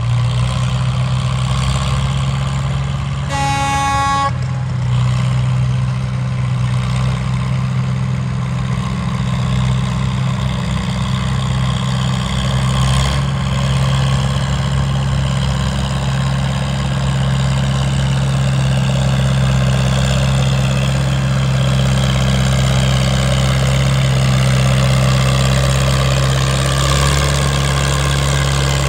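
Antique tractor engine running steadily under load while pulling a weight-transfer sled. A horn sounds once, about a second long, roughly three seconds in.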